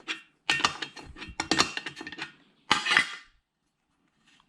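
A wrench working the fasteners on a cast-aluminium RF amplifier housing: a quick run of metallic clicks and clinks, then one louder metal clatter about three seconds in.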